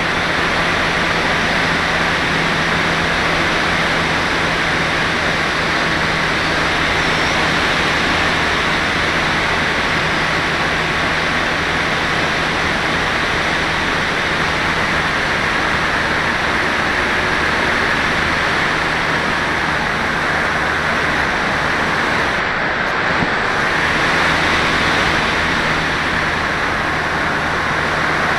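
Steady rush of airflow over the onboard camera of a radio-controlled FPV glider in flight, with a faint steady low hum underneath.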